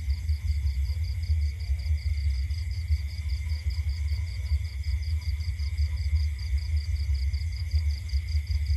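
Night insects, crickets, chirping steadily: a constant high trill and a rapid, evenly pulsed chirp running without a break. Under them is a steady low rumble that is louder than the insects.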